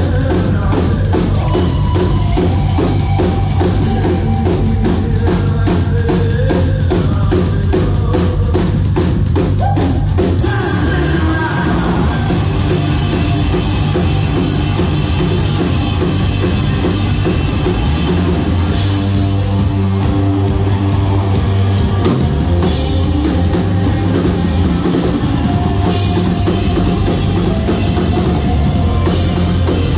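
A rock band playing live: drum kit, electric guitars and bass guitar, loud throughout. The drums beat fast and evenly for the first ten seconds or so, then the music changes to a fuller, more held section.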